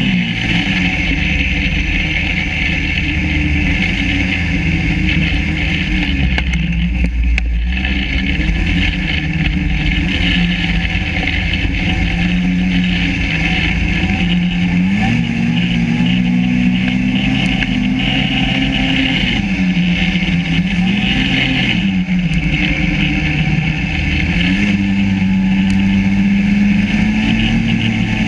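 Yamaha SRV 540 snowmobile's two-stroke twin engine running under load, its pitch rising and falling several times as the throttle is worked, then held high near the end.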